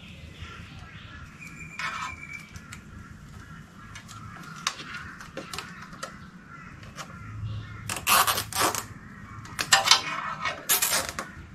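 Light metallic clinks and taps of hand tools working on a motorcycle's brake lever and footpeg mounting, with harsh cockatoo screeches in the background in two loud bouts in the second half.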